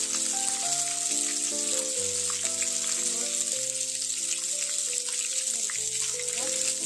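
Floured chicken leg pieces frying in hot oil: a steady sizzle throughout. Background music of held, shifting notes plays underneath.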